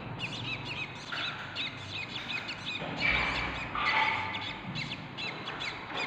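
Budgerigars chirping: a quick run of short, high chirps repeated over and over, with a couple of louder, scratchier calls about three and four seconds in.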